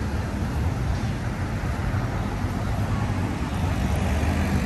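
Steady city street traffic noise: a continuous low rumble of engines and passing vehicles.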